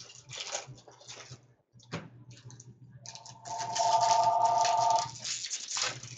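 A telephone ringing: one steady electronic ring of several tones together, starting about three seconds in and lasting about two seconds. Rustling and light clicks come before and after it, over a steady low hum.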